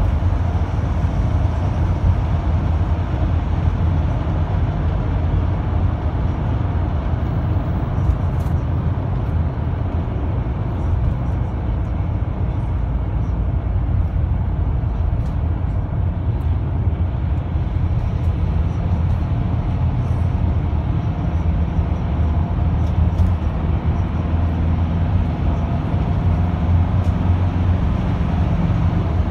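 Steady engine and road noise inside a marshrutka minibus cruising along a highway, mostly low-pitched and constant in level.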